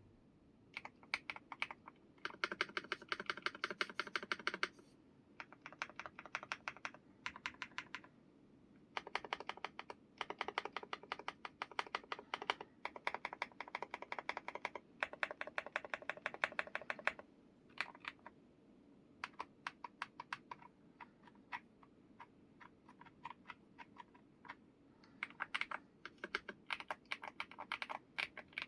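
Typing on an MCHOSE G87 mechanical keyboard: fast runs of key clicks in bursts of several seconds, broken by slower single keystrokes and short pauses.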